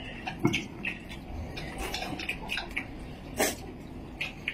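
Tableware at a meal, chopsticks and bowls clicking and knocking irregularly, with one louder knock about three and a half seconds in.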